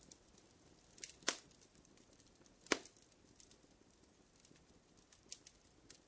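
Campfire crackling: faint scattered snaps, with two louder pops about a second and a half apart.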